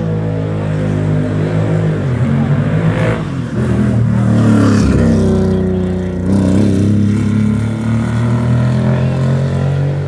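Historic rally car engine revving hard under acceleration, its pitch climbing and then dropping sharply several times as the gears change.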